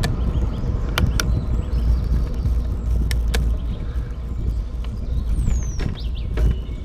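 Wind rumbling on the microphone of a moving bicycle, with a few sharp clicks and rattles from the bike as it rides.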